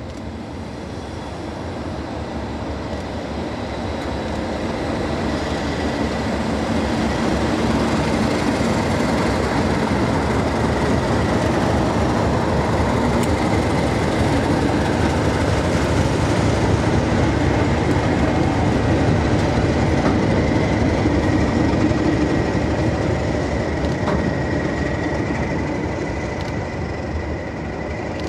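Two Class 37 diesel locomotives working in tandem, each with an English Electric V12 engine, passing close by with two flask wagons. The engine sound builds over the first several seconds, holds loud and steady through the middle and eases slightly near the end.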